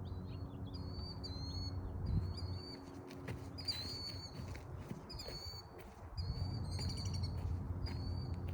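Small birds calling: a short, high, slightly sliding chirp repeated about once a second, over a steady low background hum.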